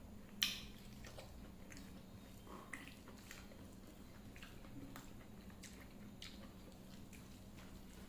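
A person eating a meal of rice and dal with fried sides: wet chewing and mouth clicks, with one sharper, louder click about half a second in.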